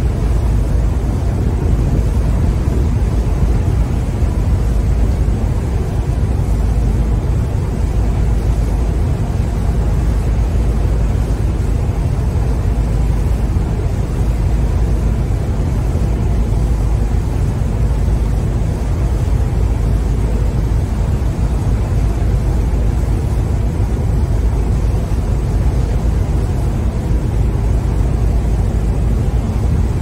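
Churning sea water rushing steadily, a constant deep rumble under a softer hiss with no separate wave breaks.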